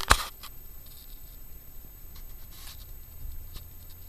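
Close handling noise: two sharp clicks at the very start, then faint scrapes and light ticks of fingers turning a small silver ring next to the microphone.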